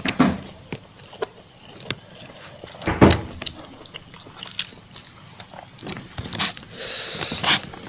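A person eating spicy curry: wet clicks and smacks of chewing, a louder sharp noise about three seconds in, and a breathy burst near the end, over a steady high-pitched tone.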